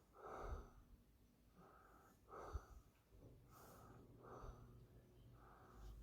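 Near silence in a small room, broken by faint, short breathing sounds about six times.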